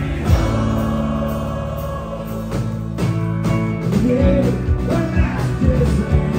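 Live country-rock band playing an instrumental passage: a fiddle bowed over strummed acoustic guitar, electric bass and drums, with a steady drum beat.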